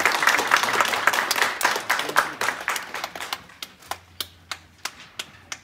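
Concert audience applauding. The applause thins out over about three seconds until only a few single claps remain.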